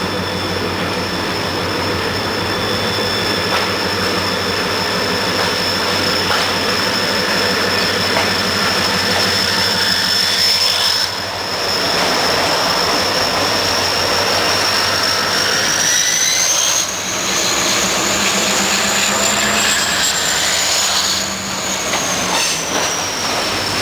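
A train running, with a steady high-pitched whine that rises in pitch past the middle and falls back near the end. The sound changes abruptly a few times, as if separate takes were joined.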